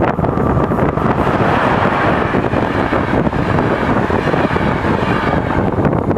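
EP09 electric locomotive and its passenger coaches passing at speed: a steady rolling rush of wheels on rail that grows fuller as the coaches go by and eases near the end, with wind buffeting the microphone.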